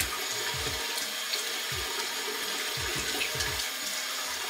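Bathroom sink tap running steadily while cupped hands splash water onto the face to rinse off foamed face wash, with repeated soft splashes.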